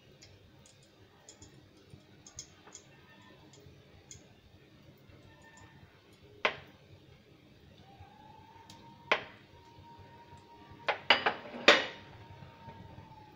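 Kitchen clinks as egg pieces are handled in flour and batter: a single sharp clink, another a few seconds later, then a quick cluster of four near the end, from glass and crockery. A faint steady tone comes in after about eight seconds.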